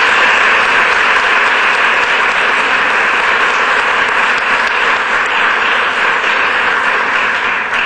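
Audience applauding, a dense, steady clapping that begins to die down right at the end.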